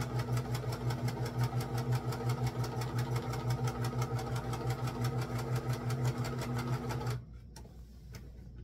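Electric sewing machine running a straight stitch, its motor humming under a rapid, even needle rhythm as it sews a seam through dress fabric. It stops suddenly about seven seconds in as the seam is finished, followed by a few faint clicks.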